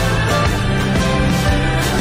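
Background music with steady held notes and a regular beat.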